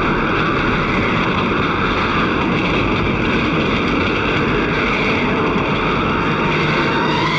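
Steady, loud rush of a fast-moving train and the wind streaming past its open door.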